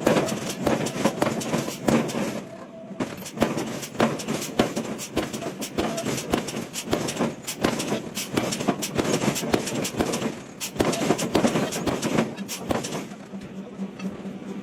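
Forging-shop clatter: dense, irregular metal knocks and clanks, easing briefly a couple of times and quieter near the end.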